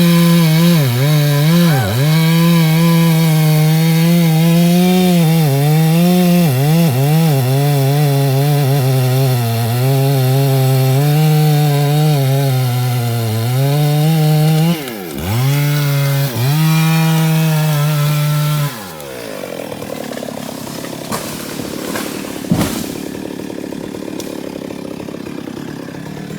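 Two-stroke chainsaw running at high speed, its pitch dipping again and again as it is loaded in a cut through wood. It drops briefly about 15 s in, then winds down near 19 s and falls away to a much quieter background with a few knocks.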